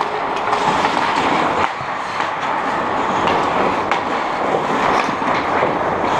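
Hockey skate blades scraping and carving across the rink ice, a steady rasping hiss, with a few light sharp clicks of sticks and puck.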